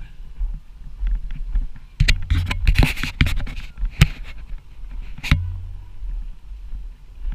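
Snowboard sliding over groomed snow with a steady low rumble, a loud burst of edge scraping about two seconds in, and two sharp knocks, one about four seconds in and one a little past five.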